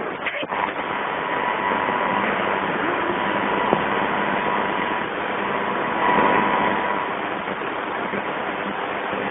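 A Sony portable AM radio's speaker gives out a steady loud hiss of static with a faint steady whistle, and the broadcast voice is buried under it: interference noise coming in over the AC power line. A few small switch clicks come about half a second in.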